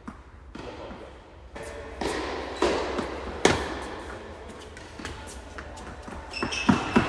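Tennis ball knocks: a few sharp hits and bounces, with a cluster of quick knocks near the end.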